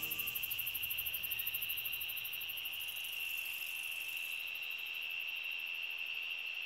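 Insect chorus: a steady high-pitched trill with a rapid, even pulsing chirp above it.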